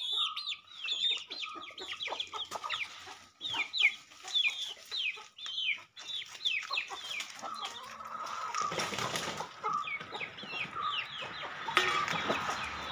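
Chickens calling: a rapid, continual run of short, high calls, each falling in pitch. About two thirds of the way in and again near the end there are brief bursts of rustling, scuffling noise.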